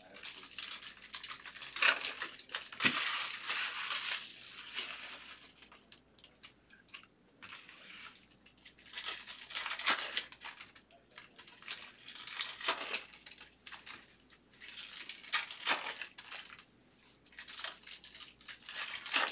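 Foil wrappers of 2023 Bowman baseball card packs crinkling and tearing as the packs are opened by hand, in a string of bursts with short pauses between.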